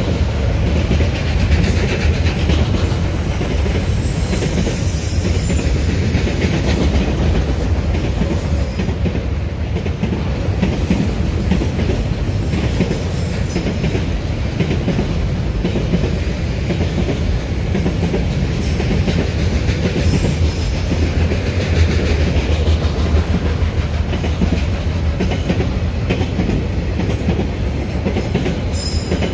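Freight train of container wagons rolling past: a steady, loud rumble and clatter of wheels on the rails, with brief high-pitched wheel squeals a few times.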